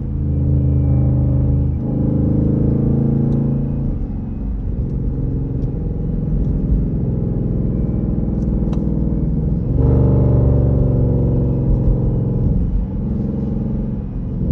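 Jeep Grand Cherokee engine pulling through the gears on a test drive, its note breaking and changing sharply at about 2, 4 and 10 seconds in as gears are shifted.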